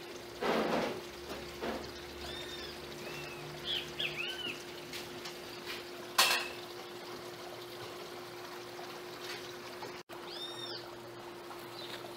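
Water swished by a hand in a plastic bowl, then handling noises, with a steady low hum underneath. A bird calls a few times in the background, in short chirps that rise and fall in pitch.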